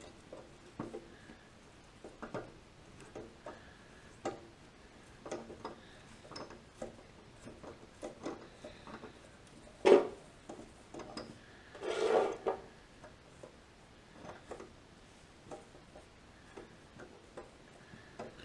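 Hand tap in a T-handle tap wrench being worked back and forth to re-cut a damaged 10-24 thread in sheet metal, making irregular small metallic clicks and scrapes. A sharper click comes about ten seconds in, and a short scraping rasp about two seconds later.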